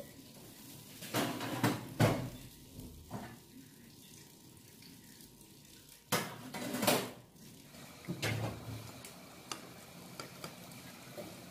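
Frying pan and ceramic plate knocking and clattering as a pancake is turned out of the pan onto the plate, in two clusters about a second in and about six seconds in, then a few light taps of a knife against the plate near the end.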